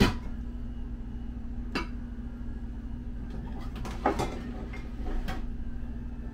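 Kitchen utensils and crockery clinking: four separate sharp knocks of metal and ceramic, the loudest right at the start, over a steady low hum.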